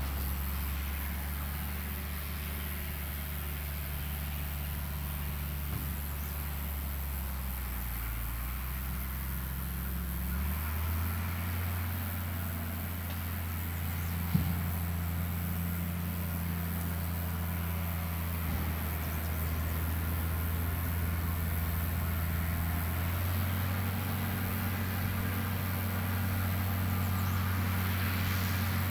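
International Harvester 1066 tractor's six-cylinder diesel engine running steadily under the load of round baling, its pitch shifting a little twice. A single sharp knock sounds about halfway through.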